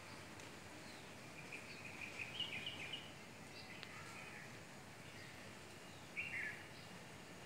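Palm squirrel calling: short, high chirps in quick runs, one cluster about one and a half to three seconds in and another just after six seconds, over faint background hiss.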